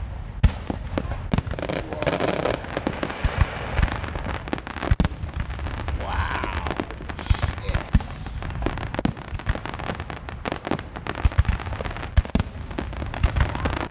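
Aerial fireworks shells bursting one after another in a dense, irregular string of deep booms and sharp cracks.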